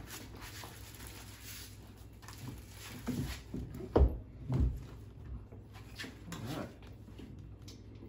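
Minn Kota Ultrex trolling motor being slid and set onto its mounting bracket: scraping and handling noise, with a sharp knock about four seconds in and a few softer thumps around it.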